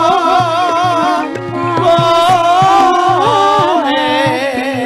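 Female Javanese sinden singing a wavering, ornamented melody with strong vibrato, over gamelan accompaniment with repeated drum strokes.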